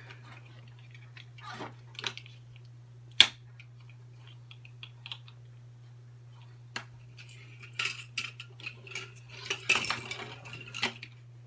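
Cheap plastic headphones being pried apart by hand with small tools: scattered clicks, taps and scraping of plastic parts. There is one sharp click about three seconds in and a busier run of clicking near the end, over a steady low hum.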